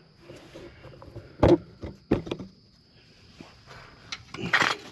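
A few sharp metallic clunks and knocks as a starter motor is handled and set into place against the engine, the loudest about a second and a half in, with a short rustle near the end.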